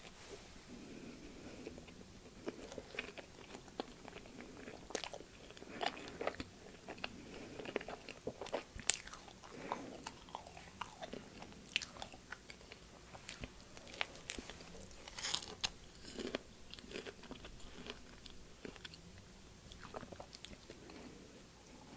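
Someone chewing a strawberry and whipped-cream sandwich on soft white bread: wet mouth sounds with irregular small clicks. The sharpest click comes about nine seconds in.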